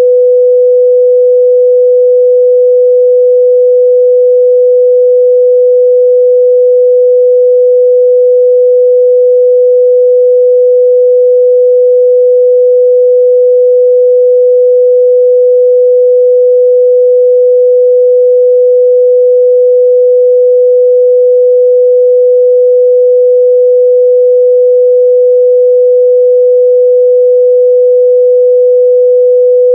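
A steady, loud 497 Hz sine-wave test tone, a single pure pitch held unchanged, used for checking a speaker's or headphones' midrange response.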